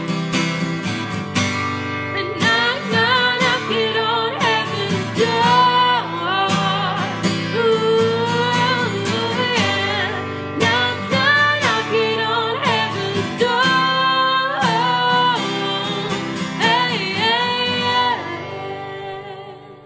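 Background music: a song with a singing voice over guitar, fading out near the end.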